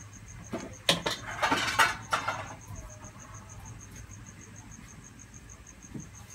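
A cricket chirping in a steady high pulse, about five a second, over a low hum. About a second in there is a short clatter of several knocks and rustling.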